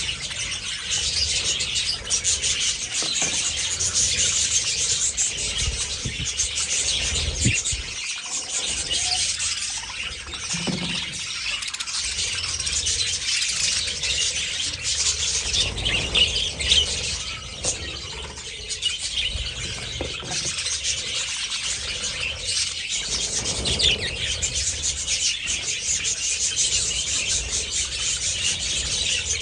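A large flock of budgerigars chattering and chirping at once, a dense, continuous warble of many birds.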